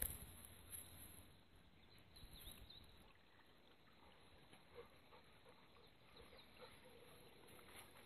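Faint, distant owls hooting: a run of short low notes in the second half, over quiet woodland with a few small bird chirps. A single bump at the very start.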